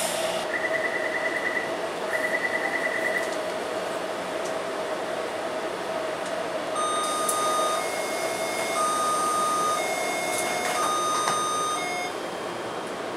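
Taipei Metro C321 train: two short bursts of rapid high beeping as the doors close, then over a steady hum, high whining tones that switch between two pitches about once a second as the train starts off, the sound of its Siemens GTO-VVVF traction inverter.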